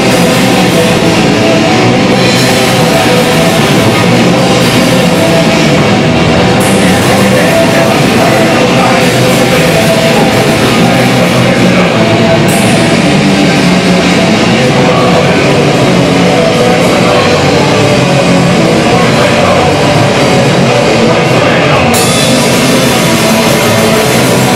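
Punk rock band playing live, loud and without a break: drum kit with cymbals and electric guitar.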